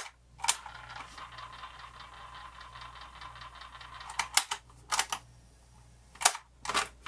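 RCA portable cassette player playing a tape faintly and too slow, with sharp mechanical clicks of its keys and cassette door at the start and again several times in the last three seconds.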